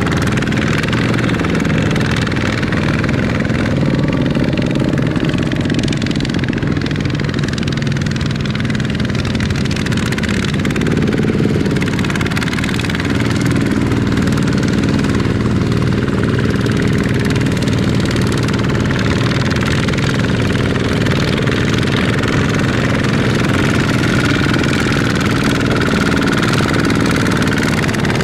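Two-wheel walking tractor's single-cylinder diesel engine running steadily under load as the bogged tractor drives its wheels through mud, pulling a loaded trailer.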